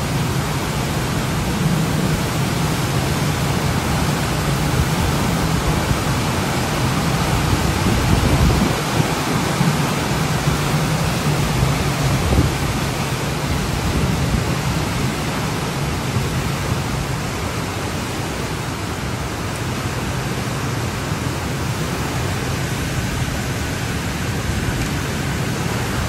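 Storm wind of about 41 mph gusting hard, with rain, buffeting the phone's microphone in a steady rush with a heavy low rumble. Stronger gusts come about eight and twelve seconds in.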